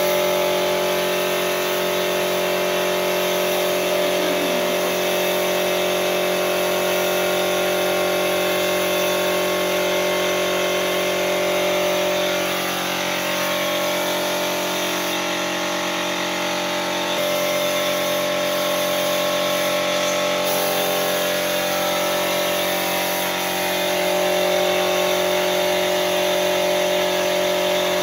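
Air compressor running steadily under the hiss of a compressed-air paint spray gun spraying finish onto a door, easing briefly twice as the trigger lets off.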